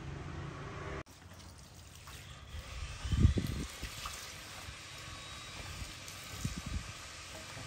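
Water trickling, with a dull thump about three seconds in and a few softer thumps near the end. Music plays briefly at the start and cuts off about a second in.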